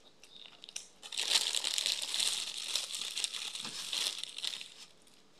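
A plastic bag crinkling and rustling as it is handled, starting about a second in and lasting about three and a half seconds.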